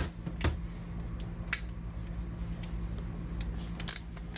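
Scattered light clicks and knocks of small screws and tools being handled on a workbench, louder near the end, over a steady low hum.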